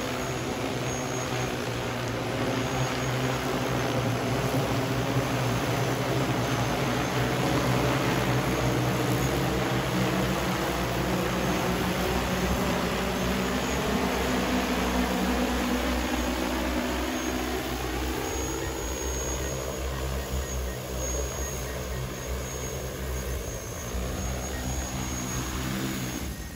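Six-rotor agricultural spray drone's propellers buzzing in flight, a steady multi-tone whine. In the last ten seconds the pitch glides upward as the drone comes down, and the sound falls away sharply at the very end as it sets down in the field.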